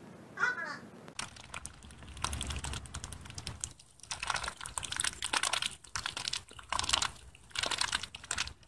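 A crow gives a short caw about half a second in. Then ducks' bills dabble and nibble fast at the tray of a poultry waterer and in the grass: a dense run of rapid clicks in clusters with brief pauses.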